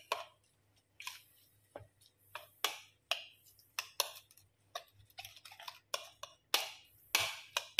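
Metal spoon stirring wet chopped vegetables in a ceramic bowl, clinking and scraping against the bowl in irregular light clicks, about two a second.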